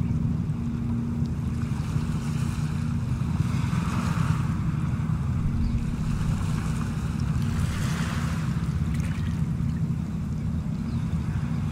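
Wind rumbling on the microphone outdoors, with a steady low hum underneath and soft swells of hiss about every four seconds.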